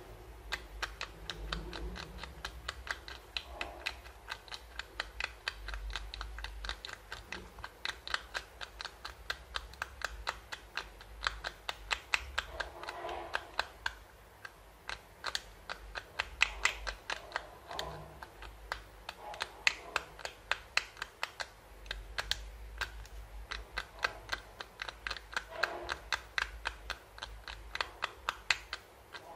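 A sharp metal pick scraping the coating off the contact pins of a laptop flex ribbon cable, to bare the traces for repair: a quick, continuous run of small scratches and ticks, several a second.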